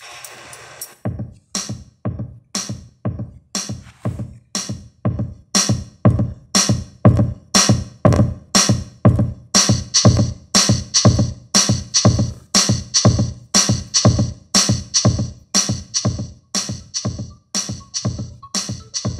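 Electronic music with a steady drum-machine beat, about two beats a second with heavy bass, starting about a second in. It is a song streamed over Bluetooth from a smartphone and played through a Pioneer MVH-98UB car radio.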